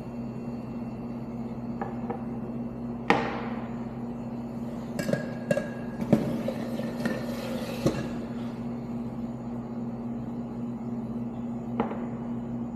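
Clinks and knocks of a coffee cup and metal barista tools on an espresso-bar counter: one sharp knock with a ringing tail about three seconds in, a few lighter clicks around the middle and one near the end. A hiss lasts about two seconds in the middle, over a steady low hum.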